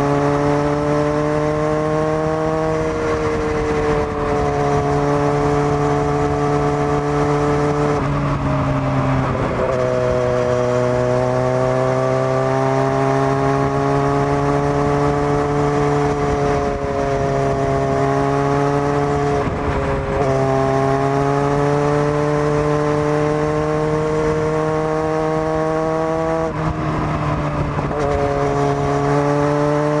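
Kawasaki Z900's inline-four engine through a Zard full exhaust system, ridden under way. The engine pitch climbs slowly under throttle and drops sharply several times at gear changes.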